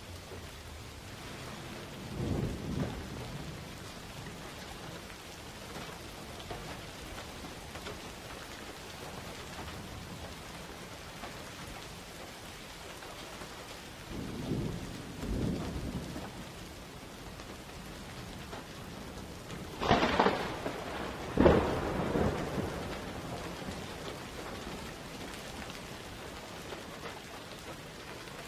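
Thunder over steady rain. Low rolling rumbles come about two seconds in and again around the middle, then two sharper, louder claps follow about a second and a half apart two-thirds of the way through, the second the loudest.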